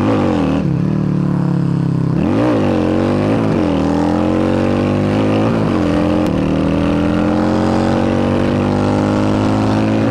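Yamaha V Star 650's air-cooled V-twin accelerating hard: its pitch dips and rises a few times in the first four seconds or so, as at gear changes, then climbs slowly and steadily.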